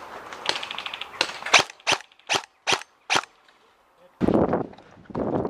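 Airsoft guns firing a string of single sharp shots, about six in two seconds. About four seconds in, a loud rushing noise follows.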